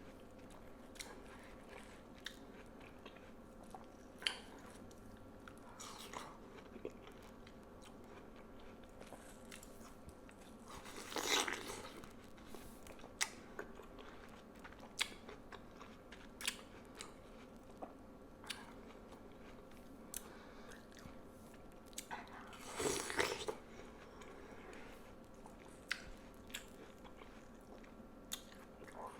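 Close-miked eating of juicy watermelon: soft wet chewing and sharp mouth clicks, with two louder, longer crunchy bites, about a third of the way in and again about two-thirds in.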